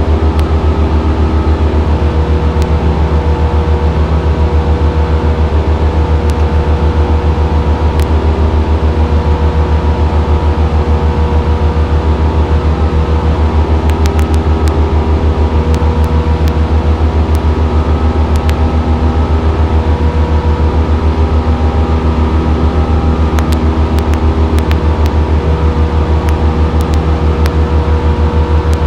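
Single-engine piston airplane's engine and propeller drone, heard inside the cabin, running steadily with an even low pulsing and no change in power.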